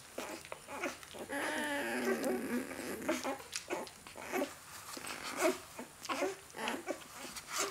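Newborn Great Dane puppies whimpering and squeaking: one long wavering cry about a second in, then a run of short squeaks.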